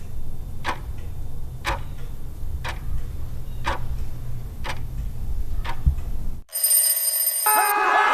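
Countdown-timer sound effect: a clock ticking about once a second over a low steady rumble for about six seconds, then a short high ring. Crowd cheering starts just before the end.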